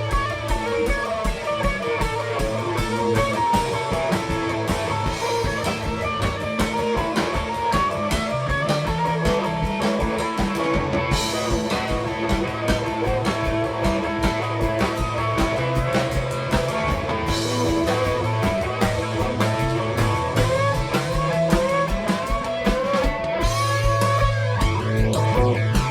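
Live rock band playing an instrumental passage: electric guitar lines over a bass and a drum kit keeping a steady beat.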